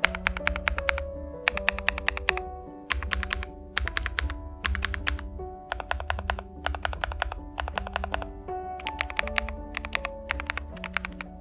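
Typing on an LMK81 mechanical keyboard with lubed Ice Pink switches, tape-modded and with modded stabilisers: quick runs of keystrokes in bursts of about a second with short pauses between, over background music.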